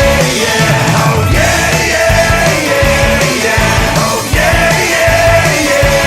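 Upbeat rock music with a driving drum beat and long held notes.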